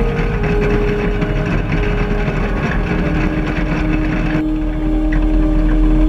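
Combine harvester running steadily as wheat pours from the fill auger into its grain tank: a constant mechanical hiss over a low machine hum. About four seconds in, the sound changes abruptly and loses most of its hiss.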